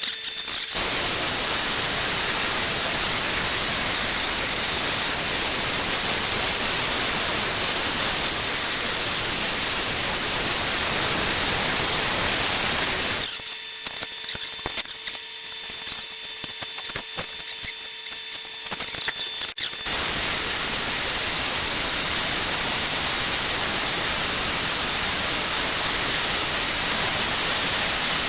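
Electric arc welding: a steady, loud crackling hiss from the arc as a steel plate is welded on. It stops about halfway through for several seconds of small clicks and knocks, then starts again and runs on.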